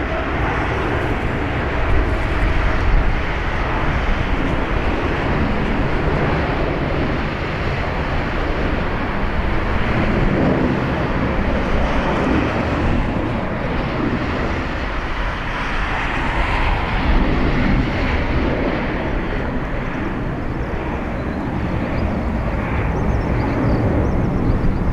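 Jet engine noise from a Boeing 787-8's Rolls-Royce Trent 1000 turbofans at takeoff thrust: a steady, loud, low rumble that swells and eases a little over time.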